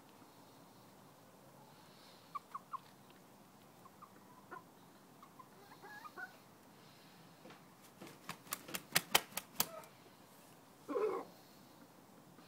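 Chickens in a yard: a few soft clucks, then a quick run of about eight sharp clicks, then one short, louder chicken call about eleven seconds in.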